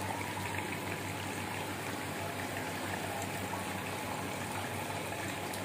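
Steady rush of water flowing through a 1054 fiberglass water-filter tank and its manual valve set to backwash, flushing the filter media, with a low hum underneath.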